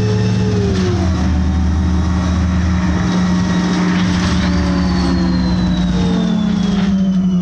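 City bus engine and drivetrain running under way, heard from inside the passenger cabin: a loud, steady drone whose tones drop in pitch about a second in, with a thin high whine that slowly falls in pitch through the second half.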